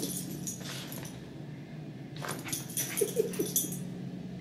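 A small dog gives three short whines a little after three seconds in, over a steady low hum.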